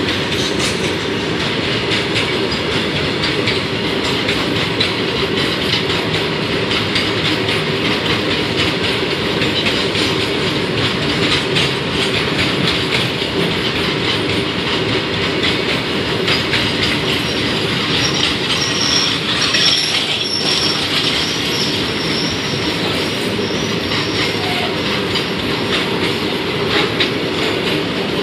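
Freight train of loaded open wagons rolling past close by: a steady rumble of steel wheels on rail with rapid clicking over the rail joints. Thin, high wheel squeals come and go, most plainly about two-thirds of the way through.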